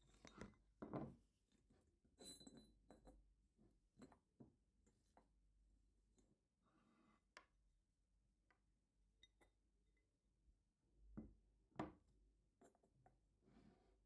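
Quiet, scattered clinks and knocks of a gas hob's metal pan supports being lifted off the glass top and set down, with louder knocks about a second in and near the end.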